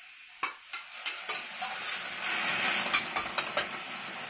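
Soy sauce poured into a hot, oil-free stainless steel pan of sautéing onions and garlic, sizzling. The hiss swells about two to three and a half seconds in, with sharp clinks of the glass bowl and spoon against the pan in the first second and a half and again around three seconds in.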